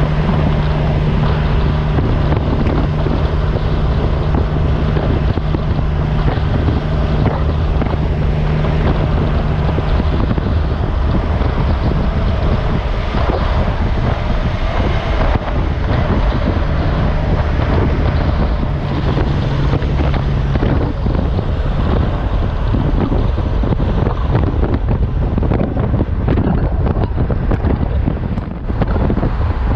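Road and wind noise from a vehicle moving at speed, with a steady low engine drone through the first third that comes back briefly later.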